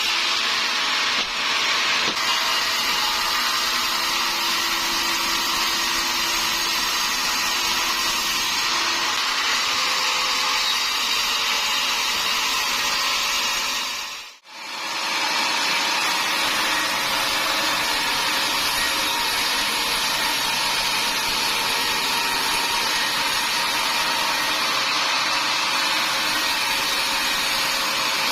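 Sawmill saw running steadily, a loud even noise strongest in the upper range, briefly fading out and back in about halfway through.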